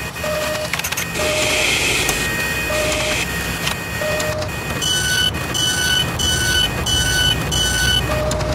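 Sound effects for an animated robotic machine: steady mechanical whirring and hiss with short mid-pitched tones every second or so, then from about five seconds in a run of high electronic beeps, about two a second.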